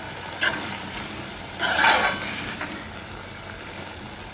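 A long metal spoon stirring and scraping through salmon and tomatoes in a metal pot, twice: briefly about half a second in, then louder and longer around two seconds in. Under it the mixture sizzles steadily as its liquid cooks down.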